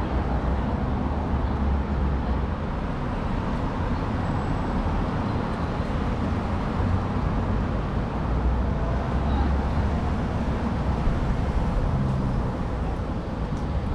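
Steady city street traffic: cars passing in a constant low rumble, with no single vehicle standing out.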